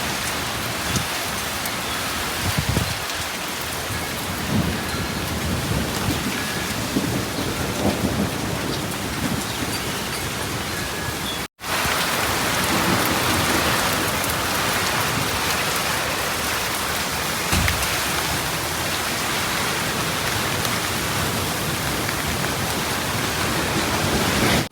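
Heavy rain pouring down steadily, with small hail mixed in and a few low rumbles of thunder. There is a sudden brief break about halfway through.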